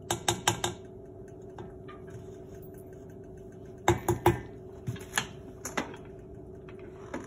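Red spatula knocking and scraping against a stainless stand-mixer bowl and its paddle beater as butter and sugar are cleared off: a quick run of sharp taps at the start, three loud knocks about four seconds in and a few single ones, over a steady hum. A last click near the end as the mixer's tilt head is pushed down.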